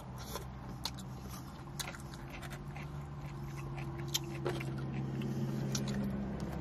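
Close-up mouth sounds of a person biting and chewing fried chicken: irregular small crunches, clicks and wet smacks. A steady low hum runs underneath and grows a little louder toward the end.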